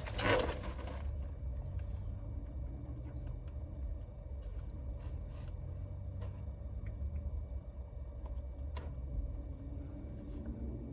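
Steady low rumble of a car idling, heard from inside the cabin, with a few faint ticks.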